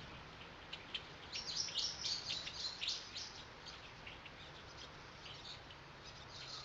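Small birds chirping in many quick, short, high calls, busiest in the first few seconds and thinning out after.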